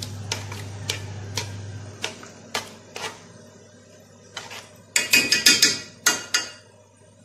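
A spoon knocking and scraping against a steel pot as warm cream is stirred to mix in a yogurt starter, with a run of louder metal clatters about five seconds in.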